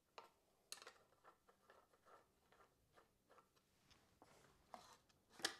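Faint clicks and light knocks from hands and tools working at a bicycle's stem and handlebars, with one sharper knock near the end.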